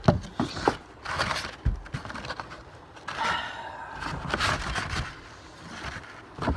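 Handling noise while searching through a shipping box: rustling of packing material with scattered sharp clicks and knocks, and a longer stretch of scraping and rustling about halfway through.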